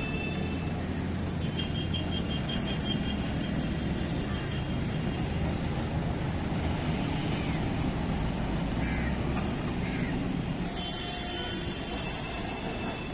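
Busy city road traffic: a steady rumble of engines running and passing, with horns. A rapid string of short high beeps comes about two seconds in, and a longer multi-note horn sounds near the end.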